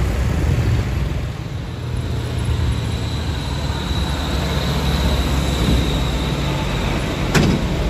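A medium diesel dump truck's engine running as it drives past, a low steady engine sound with tyre noise on the road that eases off near the end. A short sharp click comes just before the end.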